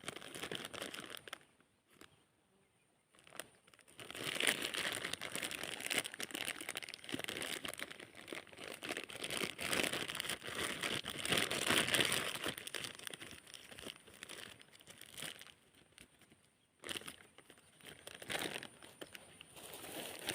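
Close crinkling and rustling handling noise, a dense run of fine crackles. It starts a few seconds in, eases off for a moment near the end and then resumes.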